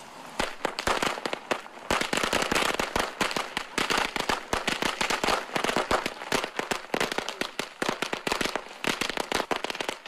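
Firecrackers going off for Chinese New Year: a rapid, continuous run of sharp cracks and pops.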